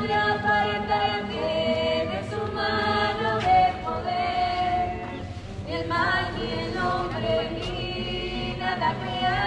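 Church choir singing a hymn together in held, sung lines, with acoustic guitars accompanying.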